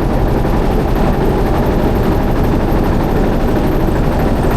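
A motorboat's engine running steadily at close range, a loud, fast, even chugging.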